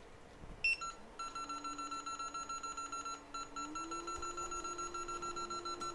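Hot air rework station switching on: one short beep, then rapid, continuous electronic beeping, with the faint steady hum of its blower fan underneath, which steps up slightly in pitch about four seconds in.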